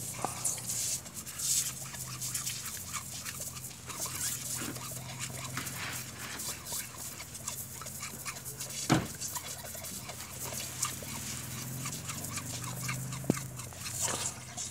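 Dog lapping and snapping at a thin stream of water from a garden hose nozzle, with irregular wet splashes and gulps. A sharp click about nine seconds in is the loudest moment.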